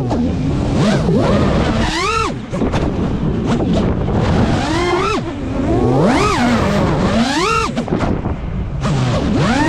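FPV quadcopter's brushless motors whining, the pitch swooping up and falling back about five times as the throttle is punched and released, over wind rumble on the onboard microphone.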